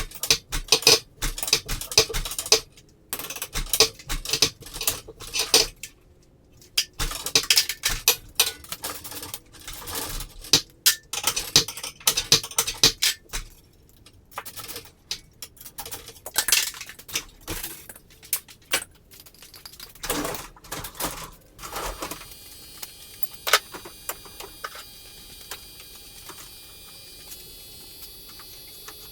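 Irregular metallic clinking and clattering, like metal parts or tools being handled, for about the first twenty seconds. After that it gives way to a faint steady hum with a few single clicks.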